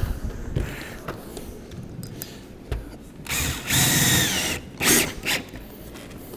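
Power drill driving a screw to fasten metal J-channel trim: one whining run of about a second and a half starting past the middle, then a short second burst, with light clicks and knocks of handling around them.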